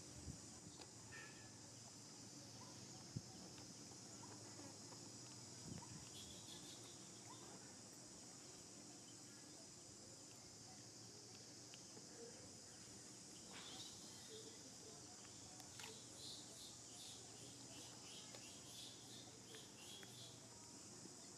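Faint, steady high-pitched drone of insects, with a single sharp click about three seconds in.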